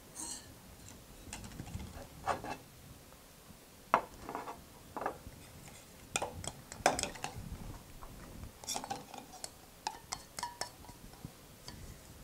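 Metal spoon clinking and scraping against a small stainless steel saucepan as cooked vegetables are spooned out of it. Irregular light clinks and knocks, the sharpest about four and seven seconds in.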